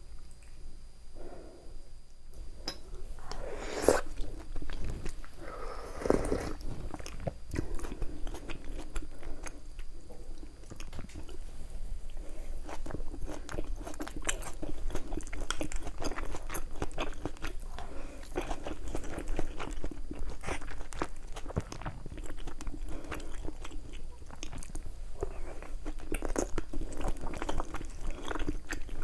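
Close-miked eating sounds: food being bitten and chewed with a steady run of small crunching clicks, with a couple of louder bites or slurps a few seconds in.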